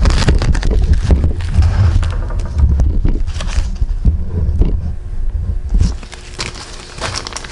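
Close-up handling noise of hands working on transfer case parts: many sharp clicks and scrapes over a heavy low rumble, which eases off about six seconds in.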